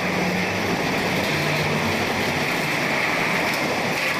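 Fried snack production line machinery running steadily, including a rotating stainless steel drum that discharges fried bugle chips into a crate: a constant mechanical noise with no change in pace.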